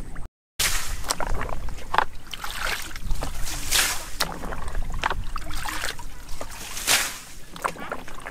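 Muddy water sloshing and splashing as a plastic bucket scoops and tips water out of a shallow field puddle, with two louder splashes. The pool is being bailed out to get at the fish.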